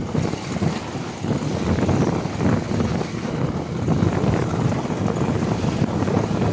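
Motorcycle engine running, with a steady rumble and wind buffeting the microphone.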